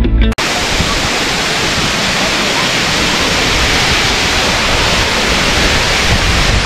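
Water overflowing a stone masonry dam and cascading down its face onto the rocks below: a steady, loud rush. Background music cuts off just after the start.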